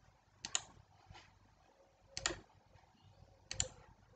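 Computer mouse clicking: three sharp double clicks spread over about three seconds, with one faint click between the first two.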